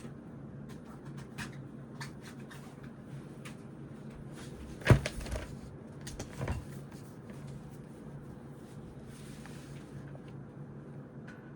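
Desk sounds at a study desk: faint scattered ticks of pens and paper over a steady low hum, with a sharp knock about five seconds in and a softer double knock about a second and a half later, like a pen or object set down on the desk.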